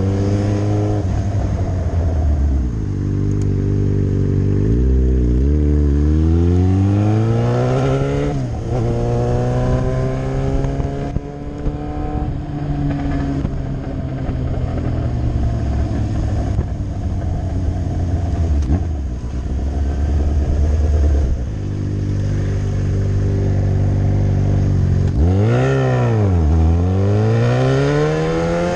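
Yamaha R6 sport bike's inline-four engine accelerating up through the gears, its pitch climbing and dropping at each shift several times in the first ten seconds. It then holds a fairly steady note while cruising, before a sharp drop and a fresh climb in revs near the end.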